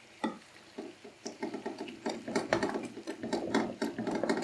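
Metal spatula clattering and scraping in a shallow tawa-style karahi as chicken pieces in masala are stirred and chopped, katakat style. Irregular knocks, growing busier from about halfway.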